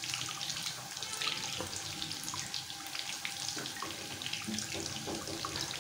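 Breaded mutton chops deep-frying in hot oil: a steady bubbling hiss with many small crackles.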